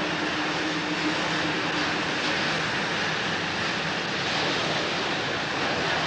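Paris Métro train pulling into the station alongside the platform and slowing to a stop, a steady noise of wheels and running gear.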